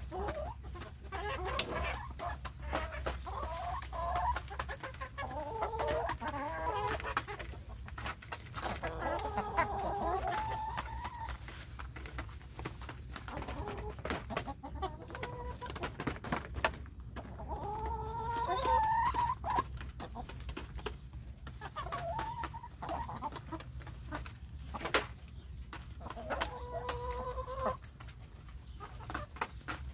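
Flock of hens clucking as they feed, in bouts of calls a few seconds long, with many short sharp clicks throughout over a steady low hum.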